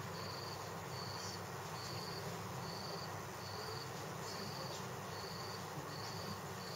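A cricket chirping steadily, one short high chirp a little more than once a second, over a low steady room hum.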